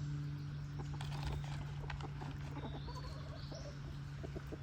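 Backyard chickens clucking, many short soft calls scattered throughout, over a steady low hum.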